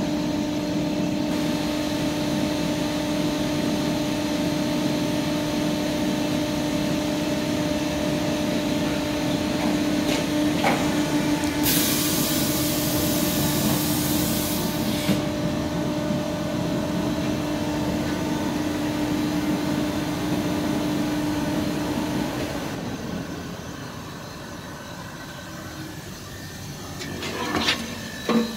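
Francis Shaw K1 intermix internal rubber mixer running empty on a dry test, a steady machine hum with a held tone from its drive and rotors. About twelve seconds in a loud hiss lasts some three seconds; the hum winds down and stops about three quarters of the way through, followed by a couple of sharp knocks near the end.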